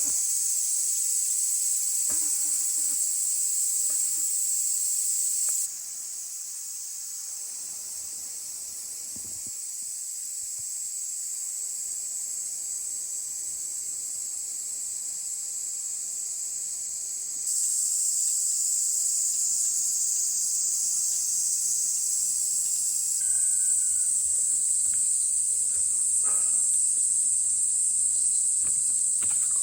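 A steady, shrill chorus of summer insects, high-pitched and continuous. It gets abruptly quieter about six seconds in and louder again later, as the shots change.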